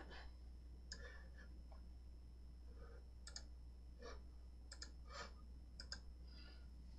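Faint, irregular clicks of a computer mouse and keyboard as a phrase of on-screen text is selected and highlighted, about a dozen clicks in all.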